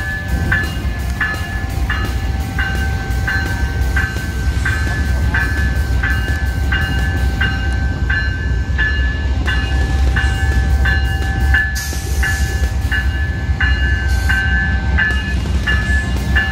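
Railroad grade-crossing bell ringing steadily, about one and a half strikes a second, over the low rumble of an Amtrak GE Genesis diesel locomotive. A brief hiss comes about twelve seconds in.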